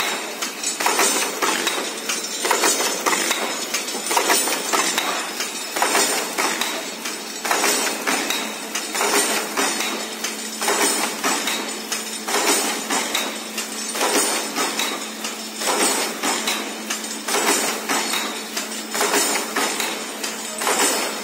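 Fully automatic saw blade machine running, with a clattering press stroke repeating about every second and a half to two seconds over a steady hum.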